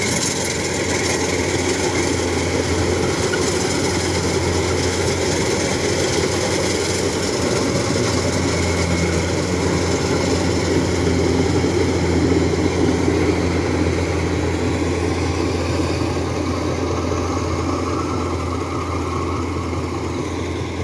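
Farm engines running steadily with a constant low hum: a rice combine harvester working through the wet, muddy field, together with a small engine-driven water pump that is draining water from the field.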